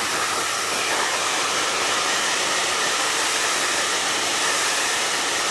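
Handheld hair dryer running steadily: an even rush of blown air with a faint whine from the motor.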